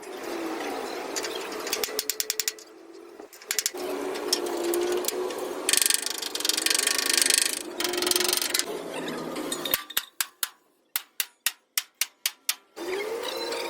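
Workshop tool sounds from truck repair work: mechanical clicking and rattling, a loud burst of noise a little past the middle, then a run of about eight sharp, evenly spaced clicks near the end.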